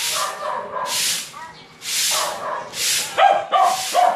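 Long-handled stick broom sweeping a concrete floor in repeated scratchy strokes, about one stroke a second. A dog barks three times near the end, louder than the sweeping.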